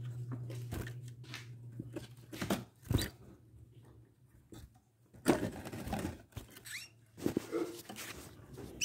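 Knocks, clicks and rattles of a wire-and-wood canary cage being handled right against the phone, with a low hum that stops about three seconds in. A couple of short rising canary chirps come near the end.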